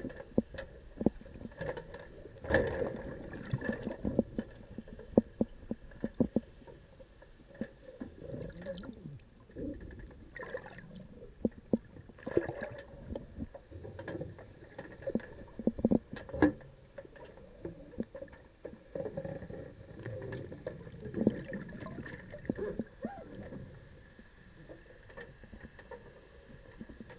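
Muffled underwater sound through a sealed action-camera housing: irregular knocks and clicks from handling, over a low rumble of moving water with some gurgling and a faint steady hum.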